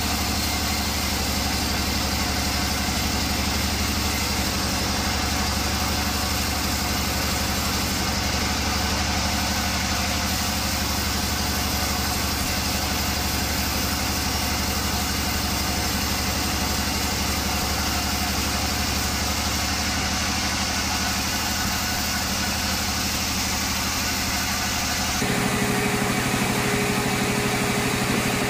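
Large band sawmill running steadily, its motor and blade making an unbroken machine hum. About 25 s in, the sound switches abruptly to a different steady machine noise with a clear high tone, from a small handheld power tool working on a sawn board.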